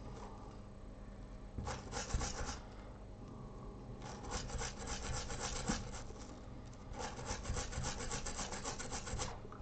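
Toothbrush bristles scrubbing the wet underside of a removed iPhone 6 baseband CPU, rapid back-and-forth strokes in bursts, a short one first and then two runs of a few seconds each. This is the cleaning of the chip's pads to a shine before it is reballed.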